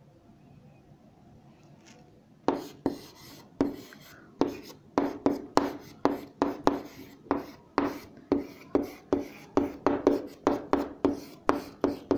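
Writing by hand: a quick run of short, sharp strokes, about two to three a second, starting about two and a half seconds in after a quiet stretch.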